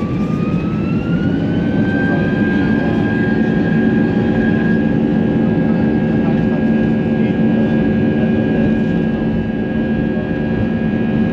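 Airliner jet engines heard from inside the cabin, spooling up to take-off thrust: a whine rises over the first two seconds, then holds steady over a heavy, even roar.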